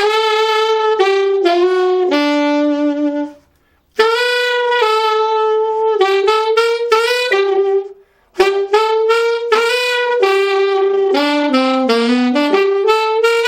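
Saxophone playing three short phrases of notes with a palate-and-uvula growl, the saxophonist's third type of growl, made with the soft palate and uvula rather than a tongue flutter, which he calls a little finer than the tongue growl. The phrases are broken by brief pauses about three and a half seconds and eight seconds in.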